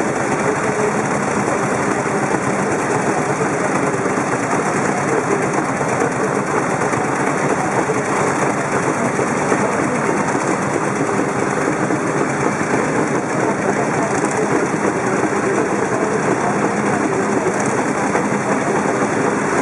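Vintage motorcycle's air-cooled single-cylinder engine idling with a fast, steady clatter, with other old motorcycle engines running around it.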